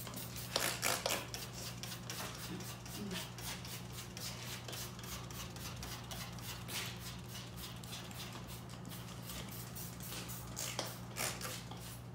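Trigger spray bottle of glass cleaner squirted again and again, short hissing spritzes several a second, wetting a rubber window seal as a slip solution for fitting the glass. A steady low hum runs underneath.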